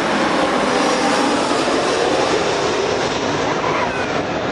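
Jet airliner passing close, a loud steady rush of engine noise with faint whining tones that shift in pitch.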